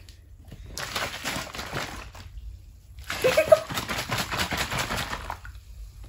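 Water and oil sloshing inside a half-filled plastic bottle as it is shaken by hand, in two bouts, about a second and then about two seconds long, with a short pause between.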